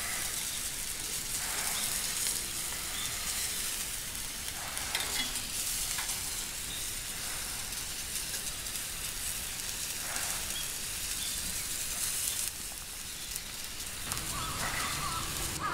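Skewered sausage sizzling over glowing charcoal embers, a steady hiss with a few faint crackles.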